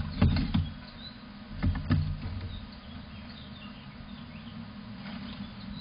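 A squirrel scrabbling and thumping in a feeder bowl right by the microphone as it leaps out, with two clusters of dull knocks in the first two seconds. Faint bird chirps follow over a quiet outdoor hiss.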